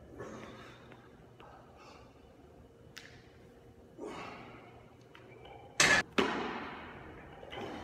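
A lifter breathing hard and exhaling sharply through a heavy barbell back squat at 405 lb. About six seconds in there is a loud double knock as the loaded bar meets the squat rack, with a ringing tail.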